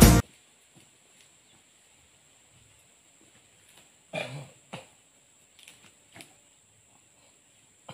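Acoustic guitar music cuts off just after the start. Then faint handling sounds of a bag being rummaged and set down, with one louder short rustle and thump about four seconds in and a few small ticks after it, over a steady high thin tone.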